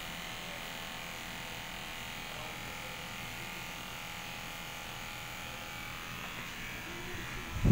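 Corded electric pet hair clipper buzzing steadily as it runs through a dog's fur, with a single sharp thump near the end.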